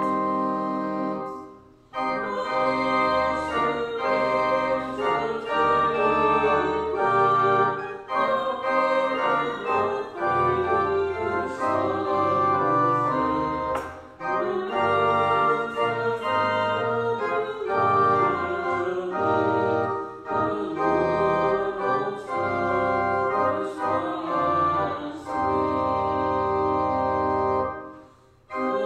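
Church organ playing sustained chords over low held bass notes. It breaks off briefly about two seconds in and again just before the end.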